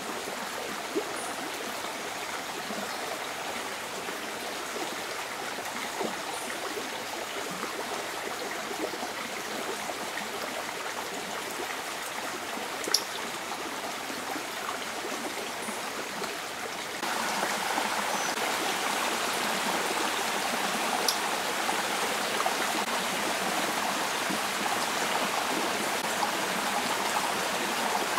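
Steady rushing of river water, stepping up in level about two thirds of the way through, with a few faint sharp ticks on top.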